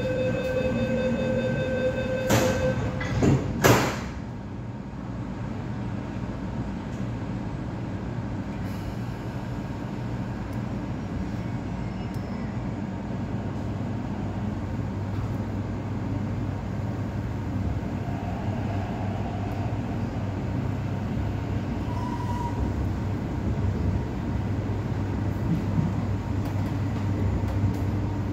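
MTR East Rail Line mid-life refurbished electric train: door-closing warning beeps, then the doors shut with two loud thuds about two and a half and four seconds in. After that the train runs on with a steady low rumble and hum.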